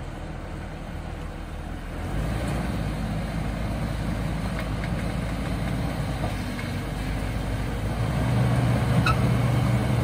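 Jeep Wrangler LJ's 4.0-litre straight-six engine running under load as the Jeep crawls up a rocky trail. It gets louder about two seconds in and again near the end, with a steady drone over the last two seconds.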